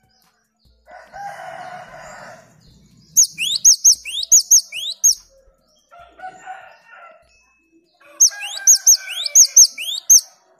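Cinereous tit (gelatik batu) singing two bursts of quick, high, upswept notes, about four a second. A lower, harsher, drawn-out call sounds before each burst.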